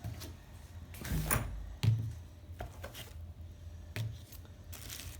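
Small parts and packaging being handled in a box: scattered light knocks and clicks, a few in the first two seconds and a couple more later, over a low steady hum.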